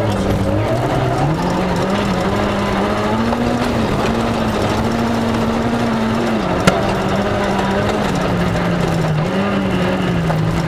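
Rally car engine running hard along a gravel stage, its pitch climbing about a second in and then holding with brief dips, over a steady rush of tyre and gravel noise. One sharp knock about two-thirds of the way through.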